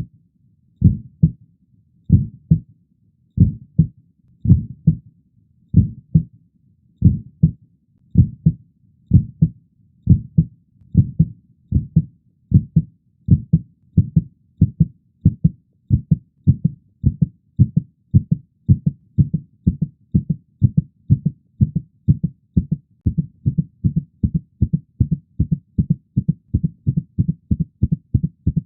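Heartbeat sound effect: low, muffled lub-dub thumps that begin at about one beat a second and steadily speed up to about two a second.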